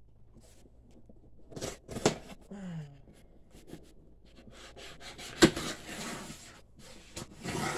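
A knife blade slitting and scraping along packing tape on a cardboard box seam, with a few knocks against the box. One sharp click about two-thirds of the way through is the loudest sound.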